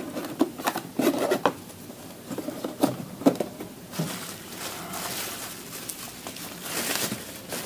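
Cardboard reel box and paper packaging being handled and opened: irregular taps, clicks and rustling, with a longer stretch of sliding and rustling about halfway through.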